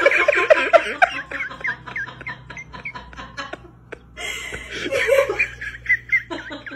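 A person laughing in short giggling bursts, once at the start and again about five seconds in.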